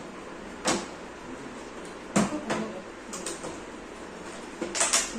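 Several separate knocks on a hard surface, spread over a few seconds, with some coming in quick pairs.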